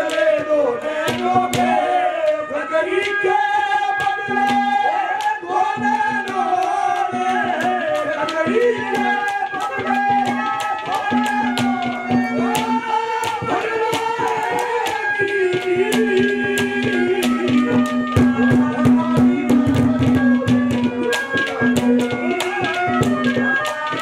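Live Haryanvi ragni accompaniment: quick, dense strokes on nagada drums under held steady tones and a wavering melody line.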